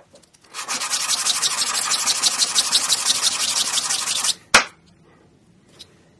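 A metal dog-tag blank being sanded flat by hand on sandpaper: quick, even back-and-forth scraping strokes that stop after about four seconds, followed by one sharp knock.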